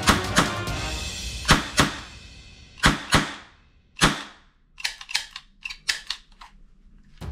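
Toy cap-gun revolver firing six sharp cap shots, some in quick pairs, each with a short ringing tail. Then a run of softer, quicker clicks near the end.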